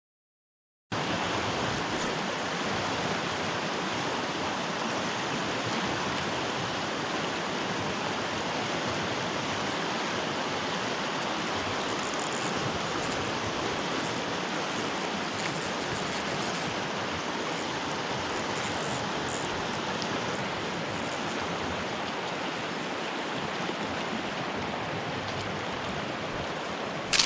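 Mountain stream water rushing steadily, cutting in suddenly after about a second of silence.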